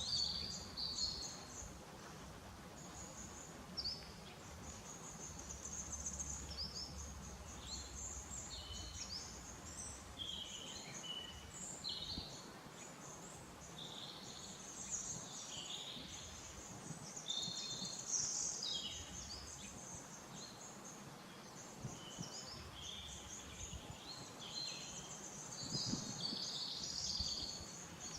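Small birds chirping and singing, many short high calls and trills overlapping, over a faint low background rumble that is stronger in the first ten seconds or so.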